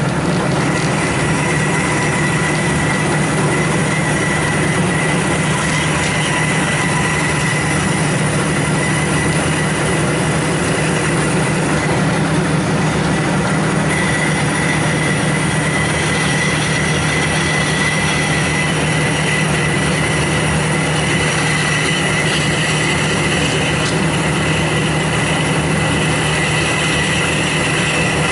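Bandsaw running and slitting a 1¼-inch brass round bar lengthwise, the stock pushed into the blade with a lead hammer. A loud, steady cutting noise with a low hum under a thin high whine.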